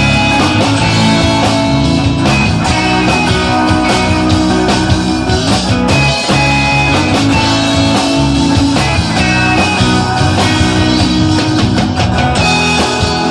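Rock band playing live: electric guitar, acoustic guitar, bass guitar and drum kit, loud and without a break.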